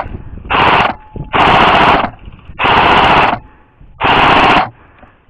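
Airsoft rifle firing on full auto in short bursts: four bursts of about half a second each, a little over a second apart, after one ending just as the sound begins.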